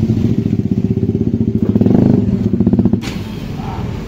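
KTM Duke 390 single-cylinder engine running through a loud, open aftermarket full exhaust system at low speed, with a brief rev about two seconds in. The engine sound stops suddenly about three seconds in.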